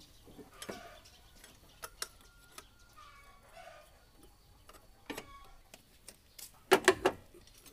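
Scattered light clicks and knocks, ending in three loud knocks in quick succession near the end, with faint bird calls in the background.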